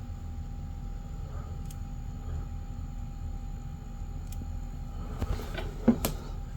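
Tape transport of an opened 1979 Sony TPS-L2 Walkman running on batteries: the motor and the belt-driven capstan run with a steady low hum and faint whine. A few small clicks just after five seconds and a sharp knock about six seconds in, from handling the unit.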